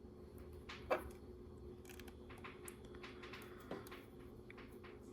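Faint clicks and taps of LEGO pieces being handled and fitted together, with a sharper tap about a second in and another near the four-second mark, over a faint steady hum.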